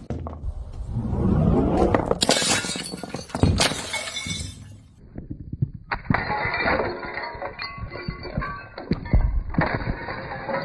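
Glass bottles being smashed and shattering: a series of sharp crashes with clinking shards, the loudest two about two and three and a half seconds in. About six seconds in it changes to a duller, muffled recording of more clattering and breaking glass.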